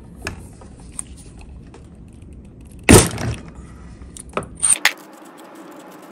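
Steel tube spark plug wrench and its bar clicking against the drive sprocket nut of a 66/80 cc motorized-bike engine as the nut is turned loose, with one loud sharp metallic crack about three seconds in and a few light clinks near the end.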